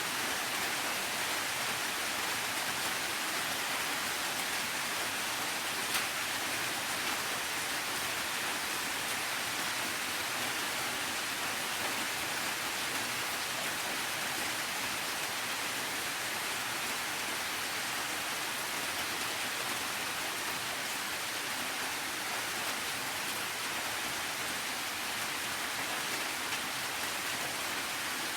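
Steady rain, an even hiss of many drops with no change in strength, and a single faint tick about six seconds in.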